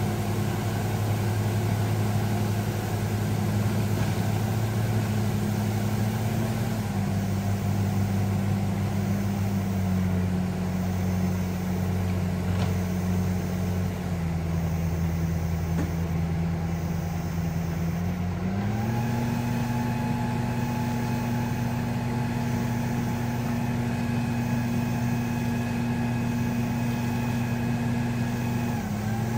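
Crawler bulldozer's diesel engine running under load while it drags a bundle of logs by winch cable; the engine note sags in steps through the first half, then picks up to a steady higher pitch about two-thirds of the way in, with a brief dip near the end.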